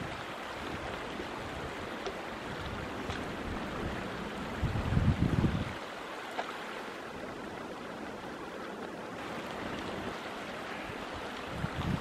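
Shallow winter stream running over stones between snow banks, a steady rushing and babbling of water. A gust of wind buffets the microphone about halfway through.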